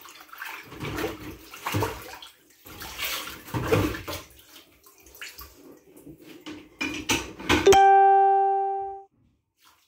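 Dishes being washed by hand in a stainless steel sink: water sloshing and crockery knocking in irregular bursts. Near the end a single loud musical note rings out for about a second and a half, then cuts off abruptly into dead silence.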